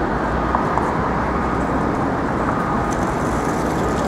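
Steady city street traffic: the running of car and truck engines and tyres on the road, an even noise with no single vehicle standing out.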